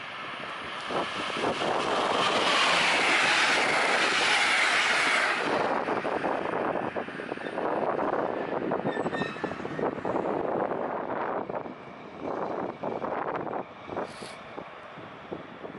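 DB class 218 diesel-hydraulic locomotive running at slow speed, pulling a train of track construction machinery and wagons, with the wheels and wagons rattling over the track. Loudest a few seconds in as it nears, then fading unevenly, with a short high squeal near the end.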